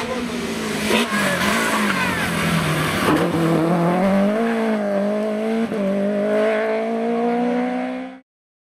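BMW rally car's engine under hard acceleration through a tarmac bend, its note dipping and then rising steadily as it pulls away. The sound cuts off suddenly near the end.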